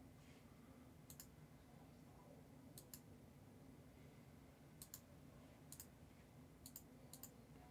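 Faint left-button clicks of a computer mouse, about six in all, a second or so apart, several heard as a quick double tick of press and release, over a low steady room hum.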